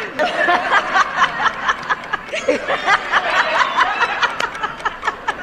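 People laughing in a large room, with scattered claps throughout.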